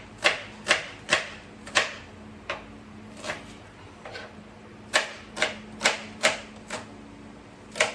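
Kitchen knife chopping white onions on a cutting board: sharp, separate knocks, about one or two a second, coming more sparsely around the middle.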